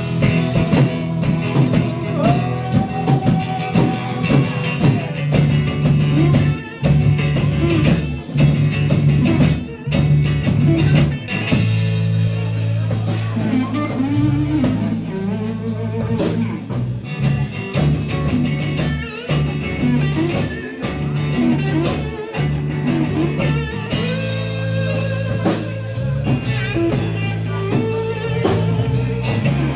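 Live rock band playing an instrumental break: a guitar lead with notes that bend up and down over bass and drum kit, without vocals.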